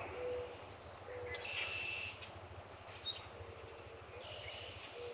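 Birds calling: a short low note repeated about once a second, with a few higher calls and a single sharp chirp, over a faint steady low rumble.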